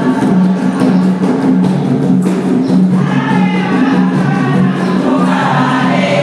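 A choir and congregation singing together over steady, held low notes, with light percussion.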